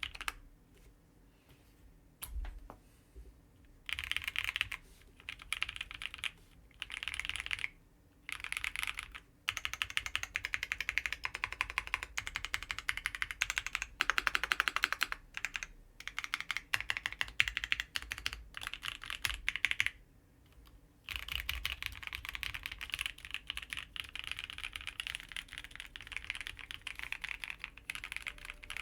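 Typing on a 65% mechanical keyboard with lubed NovelKeys Cream linear switches, GMK doubleshot ABS keycaps, an FR4 plate and full foam in an aluminium Vega case. Quick runs of keystroke clacks come in bursts with short pauses, starting after a few quiet seconds and running without a break in the last third.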